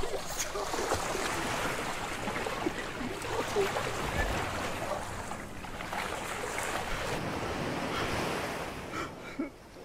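Ocean surf rushing, a steady wash of noise that dies away near the end.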